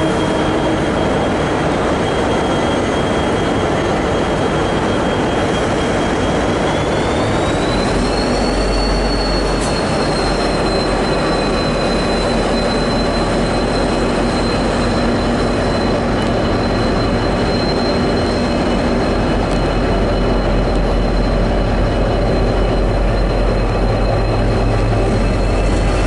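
V/Line N-class diesel-electric locomotive rolling slowly along the platform with its diesel engine running, a low hum growing stronger from about eight seconds in as it draws near. A thin, high, steady squeal runs over it, rising a little in pitch about seven seconds in.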